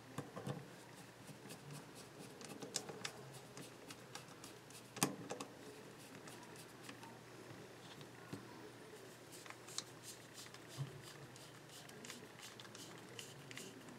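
Light, irregular clicks and taps of a Torx screwdriver and the parts of a copper-scaled folding knife being handled and screwed back together, with one sharper click about five seconds in.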